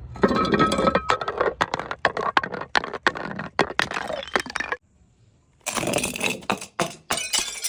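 Something brittle being crushed: a dense run of cracks and crunches for about five seconds. After a brief silence comes a second run of cracking with ringing, glassy clinks.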